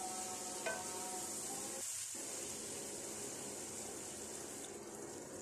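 Potato and bitter gourd sabzi sizzling steadily in a steel kadhai as it is fried, with one sharp tap of the spatula on the pan about a second in.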